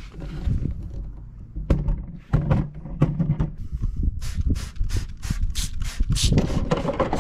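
Trigger spray bottle squirting water onto a headlight lens in quick pumps, about four a second, starting about four seconds in, to wet it for wet sanding. Before that, low rumbling and a few knocks.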